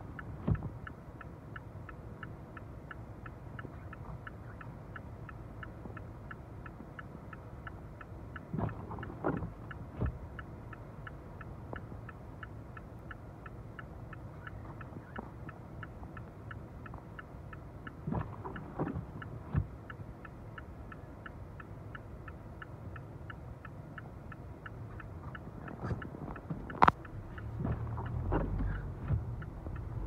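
Inside a car cabin, the indicator ticks steadily, a little over two ticks a second, over the low hum of the idling engine, with a few windscreen-wiper sweeps. Near the end the engine and road noise rise as the car pulls away.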